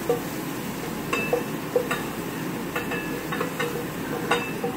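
Asparagus sizzling in a frying pan while a metal utensil stirs it, clicking and clinking against the pan about ten times.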